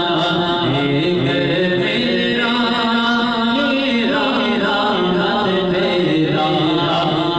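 Male voices chanting a devotional recitation into a microphone, sung without pause and with long held notes.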